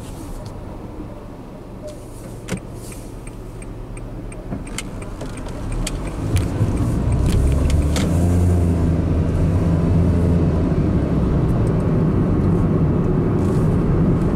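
Honda N-One Premium Tourer's turbocharged three-cylinder engine heard from inside the cabin, running quietly with a few light clicks at first. About six seconds in it grows louder and steady as the car accelerates away and drives on.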